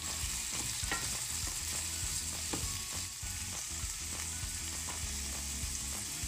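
Chopped tomato, onion and garlic sizzling in hot oil in a pan as they are sautéed and stirred, with a few light clicks of a utensil against the pan.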